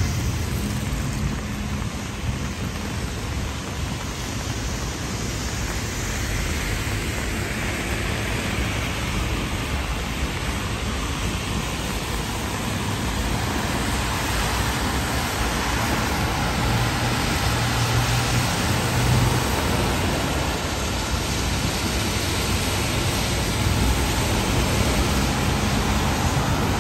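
Steady hiss of rain and wet city traffic, with a low engine hum that grows and fades as vehicles pass.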